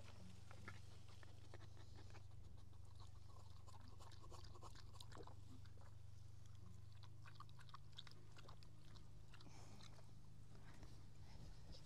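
Quiet field ambience: a steady low rumble with faint, scattered crackles and ticks.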